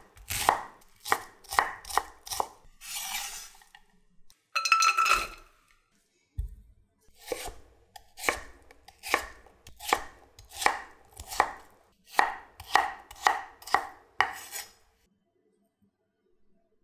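Kitchen knife chopping on a wooden cutting board in quick, even strokes about two a second, dicing onion and then raw potato. Between the two runs of chopping come a couple of brief scraping noises, and the chopping stops about two seconds before the end.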